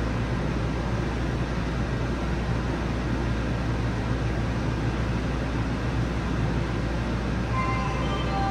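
Yokohama Municipal Subway 3000R train standing in a station with its doors open: a steady low hum and air-conditioning rush inside the car. Near the end, a chime melody begins.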